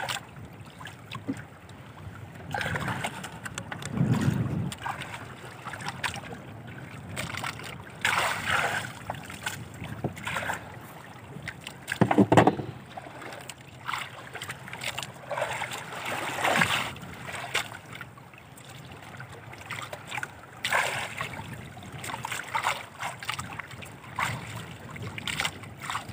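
Waves slapping and sloshing irregularly against the hull and outrigger of a small drifting boat at sea, with a louder knock about twelve seconds in.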